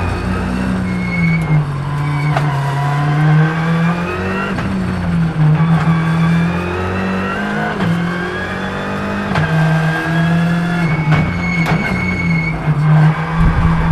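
Ford Fiesta R5 rally car's 1.6-litre turbocharged four-cylinder engine heard from inside the cabin, driven hard: the engine pitch climbs and drops sharply several times as the driver shifts the sequential gearbox, over a constant low drone, with a few sharp clicks.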